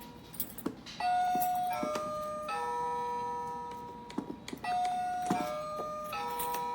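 Electronic doorbell chimes of a Melissa & Doug Take-Along Wooden Doorbell Dollhouse, its buttons pressed over and over. Each press gives a click and a short tune of a few held notes, and the tune plays about twice.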